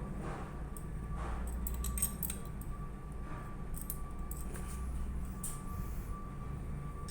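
Light metallic clicks and clinks of hand tools and pump parts being handled during work on a hydraulic piston pump, over a steady low hum.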